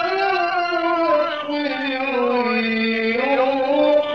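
A man's voice reciting the Quran in the melodic mujawwad style, from a 1970s live recording. He draws out one long ornamented phrase that sinks lower in pitch near the middle and climbs back near the end.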